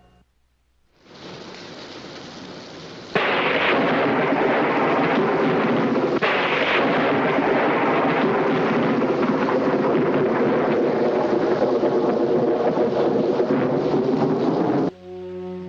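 Storm sound effect: rain fades in about a second in, then a sudden loud thunderclap about three seconds in gives way to heavy rain and rolling thunder, with a second crack about six seconds in. The storm cuts off near the end as music begins.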